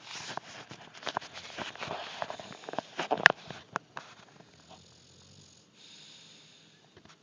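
English bulldog snuffling and snorting through its nose in a quick run of short noisy sniffs, with one sharper, louder snort about three seconds in, then settling into soft breathing.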